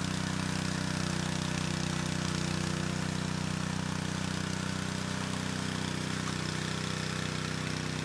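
Small gas engine of a walk-behind power trowel running steadily at an even speed as its rotating blades smooth a freshly poured concrete slab.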